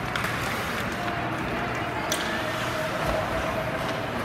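Ice hockey game ambience in a rink: skates scraping on the ice and a sharp crack about two seconds in, over a steady arena hum and distant voices.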